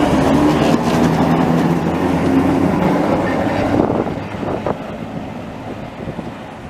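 A vintage tram runs past at close range with a steady hum and the rumble of its wheels on the rails. The sound fades as it pulls away, from about four seconds in.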